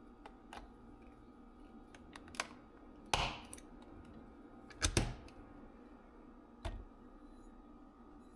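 A few scattered light clicks and knocks, with louder knocks about three and five seconds in and a softer one near the end.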